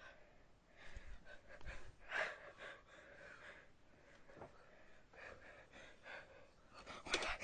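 Faint breathing and soft gasps in short, scattered snatches, with a couple of soft thumps about a second in.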